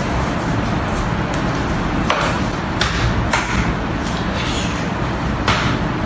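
Sharp slaps of hands and forearms striking and trapping during Wing Chun chi sau drills: four short slaps, about two seconds in, twice around three seconds, and once more near five and a half seconds, over a steady low rumble.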